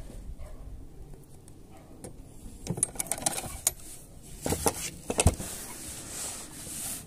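A handful of sharp clicks and knocks of a metal hasp being handled and fitted against a wooden panel, the loudest about five seconds in, followed by a soft rustling hiss near the end.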